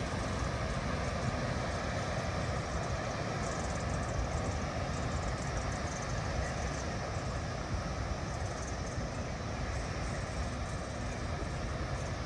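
Steady rumble and hiss of a vehicle underway, even throughout with no distinct knocks or changes in pitch.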